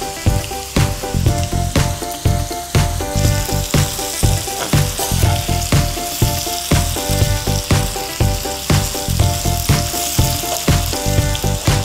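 Floured textured soy chunks sizzling as they pan-fry in oil in a skillet, the sizzle heavier from about three seconds in. Background music with a steady beat of about two pulses a second plays along.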